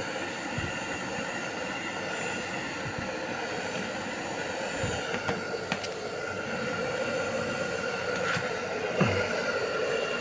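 Electric blow dryer running steadily with a constant motor hum and whine. About nine seconds in there is a brief low sound that falls in pitch.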